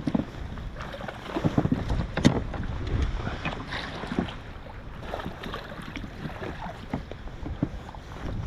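Irregular knocks and clatters of gear against a kayak hull over a steady background of water and wind, the loudest bumps coming between about one and two and a half seconds in.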